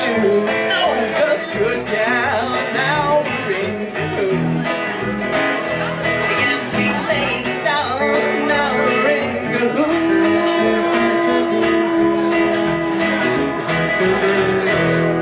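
Live country band music with no vocals: a solid-body electric guitar, an upright bass and an acoustic guitar playing an instrumental stretch, settling onto a long held note about ten seconds in.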